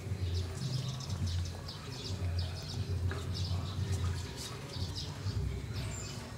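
Small birds chirping in many quick, high-pitched notes, over a low hum that comes and goes every second or so.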